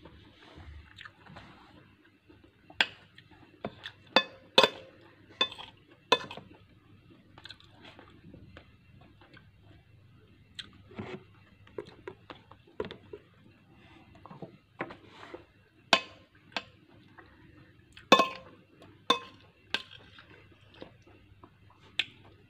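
Metal spoon clinking and scraping against a glass bowl, in irregular sharp clinks a second or so apart, with soft chewing between.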